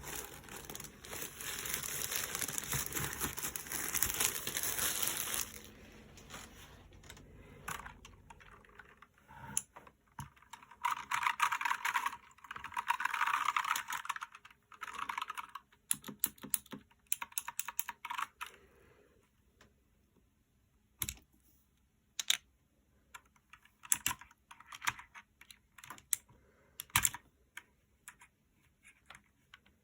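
Clicky Otemu blue mechanical keyboard switches being pressed. Rapid typing comes in a flurry about a third of the way in, then scattered single key clicks. A rustling like packaging handling comes first, for about five seconds.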